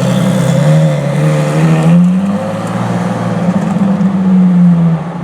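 LaFerrari's 6.3-litre V12 running loudly at low revs, its pitch rising a little and easing back a couple of times.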